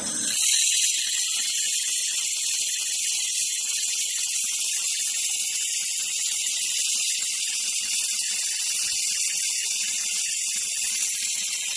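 Handheld 3000 W fiber laser welding gun welding 6 mm aluminium: a steady high hiss with faint irregular crackle. It starts abruptly and cuts off abruptly near the end.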